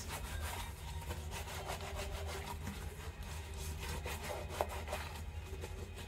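Hands rubbing dish-soap lather into a wet white New Balance 247 sneaker, a continuous soft scratchy rubbing in small uneven strokes, over a steady low hum.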